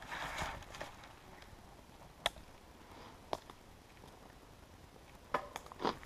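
Giant bicycle riding a dirt forest trail: a brief rush of noise at the start, then a low tyre-on-dirt hiss broken by a handful of sharp clicks and rattles as the bike goes over bumps, the loudest near the end.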